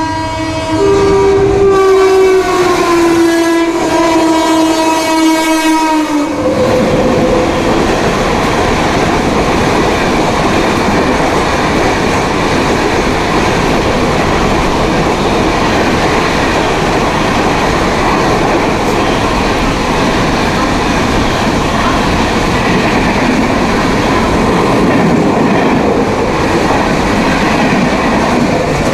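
Indian Railways electric locomotive horn blowing one long blast of about six seconds, dropping slightly in pitch, as the train passes. The horn then stops, and the steady rumble and clickety-clack of the passing train's wheels on the rails carries on.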